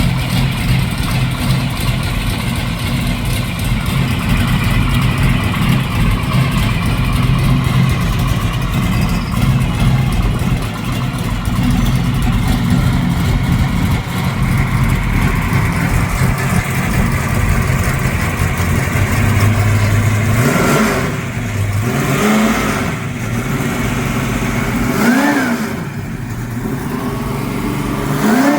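1972 Chevrolet El Camino SS V8 idling steadily, then revved in several short throttle blips over the last eight seconds or so, the pitch rising and falling with each.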